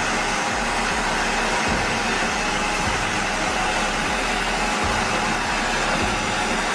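Industrial wood chipper running steadily, an even, continuous machine noise with no distinct knocks or breaks.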